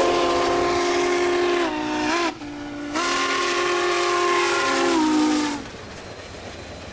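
Steam locomotive's chime whistle sounding a chord of several notes over the noise of a passing train. The first long blast sags in pitch and breaks off about two seconds in. A second long blast follows and cuts off a little past five seconds, leaving a lower steady rumble.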